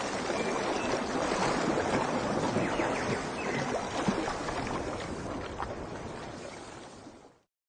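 Splashing, washing water, like waves lapping, as a steady dense rush that fades out near the end into silence.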